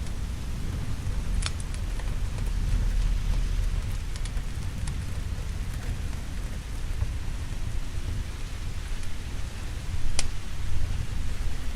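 Steady rain falling, with a low rumble of thunder that is strongest in the first few seconds. A few sharp pops stand out, the clearest about a second and a half in and near the end.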